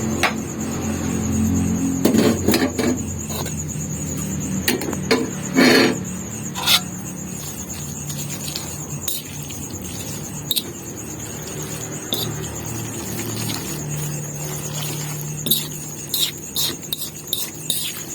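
Kitchen utensils clinking and knocking against pots and dishes, with scattered sharp clicks and a few louder knocks in clusters, over a steady low hum.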